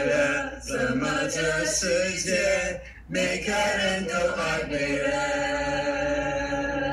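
Male voices chanting, with a brief break about three seconds in and a long held note over the last two seconds.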